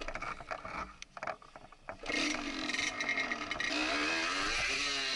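Yamaha DT 125's single-cylinder two-stroke engine, quiet at first, then revving up loudly about two seconds in and pulling hard, its pitch climbing as the motorcycle accelerates.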